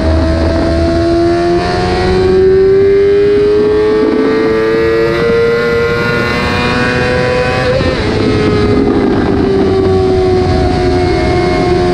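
Yamaha YZF-R6 (RJ15) inline-four engine running at high revs, its pitch climbing gradually for several seconds, then dropping suddenly a bit past halfway and easing slowly lower.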